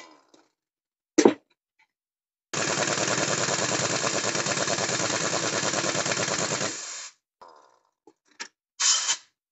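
Heavy-duty pneumatic impact wrench hammering on a truck's wheel nuts: a short burst, then about four seconds of continuous rapid hammering, then two short bursts near the end.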